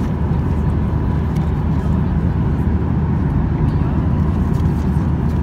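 Steady cabin noise of a Boeing 737-800 in cruise, heard inside the cabin: a constant low rush of airflow and drone from its CFM56-7B engines.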